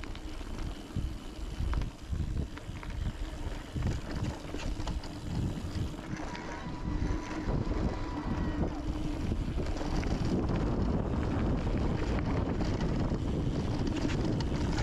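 Mountain bike ridden down a rocky trail: tyres rumbling over rock, with the bike rattling and clattering and wind buffeting the camera microphone. It gets louder and steadier about ten seconds in.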